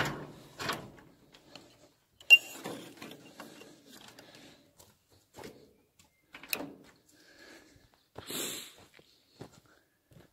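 Handling noise at a wooden pen covered in wire mesh: a sharp knock at the start and a louder one about two seconds in, with scattered clicks, scraping and rustling between them.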